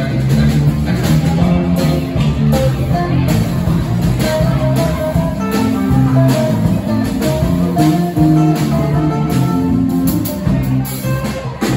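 Live rock band playing: electric and acoustic guitars, electric bass and a drum kit keeping a steady beat.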